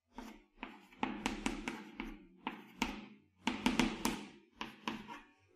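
Chalk tapping and scraping on a chalkboard as characters are written, in about seven short clusters of strokes with brief pauses between.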